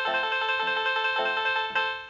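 Samsung Galaxy A6 ringtone playing: an electronic melody of short notes in a steady rhythm.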